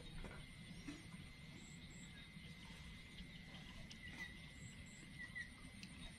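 Near silence: faint background hum with a thin steady high tone and a few faint short chirps about four and five seconds in.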